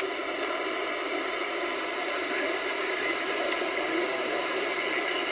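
Steady hiss of receiver static from a President Lincoln transceiver's speaker, heard while no station is transmitting.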